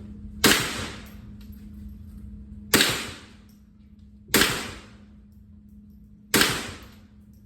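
Four single shots from a .22 rifle, spaced about two seconds apart, each with a short ringing tail.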